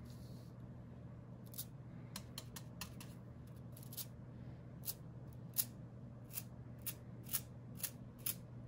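Stiff bristles of a flat paintbrush being flicked with a finger to spatter distress ink onto paper. It makes a series of sharp little snaps at an uneven pace, about two a second.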